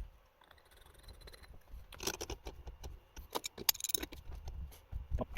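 Scattered light metallic clicks and knocks of a ball valve's parts being handled as it is reassembled.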